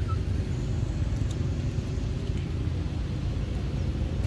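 A steady low rumble, dense and uneven, with a short faint high chirp right at the start.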